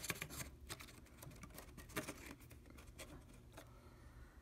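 Faint scattered clicks and taps of small wooden wedges being slid and pushed into place in a wooden jig, several over the first three and a half seconds.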